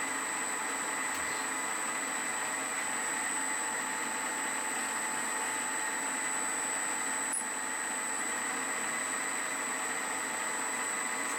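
Small metal lathe running steadily, its motor and drive giving a constant whine with several steady tones over a mechanical hum. There is a small tick about seven seconds in.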